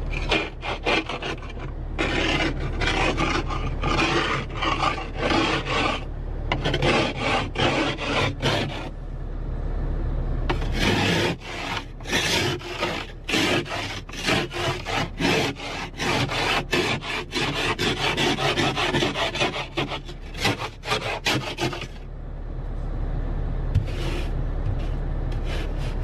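Ice scraper scraping frost off a car windscreen in quick back-and-forth strokes, heard from inside the car, with short pauses between runs. A low steady hum runs underneath; the scraping stops near the end, leaving only the hum.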